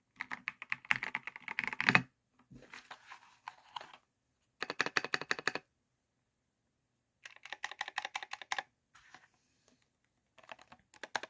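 Custom mechanical keyboard with Tecsee Carrot switches being typed on in quick runs of keystrokes, broken by short silent pauses, with one softer, quieter run early on.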